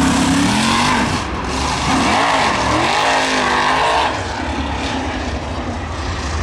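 Super late model race cars' V8 engines running at low speed. Their pitch rises and falls as cars go by, and the sound eases off a little after about four seconds.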